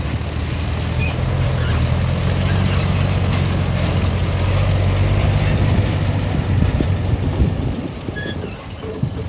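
Heavy diesel engine of an excavator running with a steady low drone that eases off near the end.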